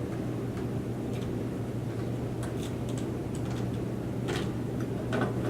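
Scattered light clicks and taps from handling computer parts, over a steady low hum.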